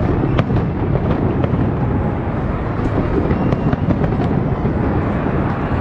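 Aerial fireworks display going off in a continuous low rumble of booms, broken by several sharp cracks of bursting shells.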